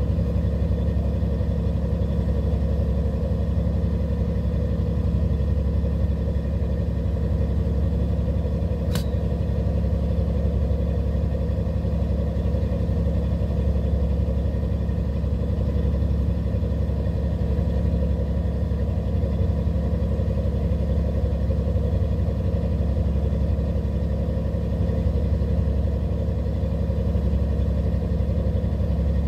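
A fishing boat's engine running steadily, a constant low drone with a faint steady whine above it. One brief sharp tick about nine seconds in.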